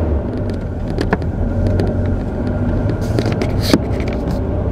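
Car engine and tyres heard from inside the cabin while driving slowly: a steady low rumble, with a few short knocks, two of them sharper, about a second in and near the end.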